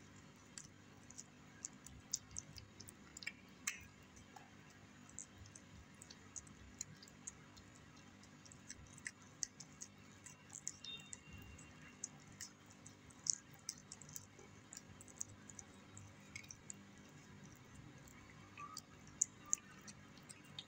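Cat eating wet cat food close to the microphone: quick, irregular wet clicks and smacks of its mouth and tongue, several a second.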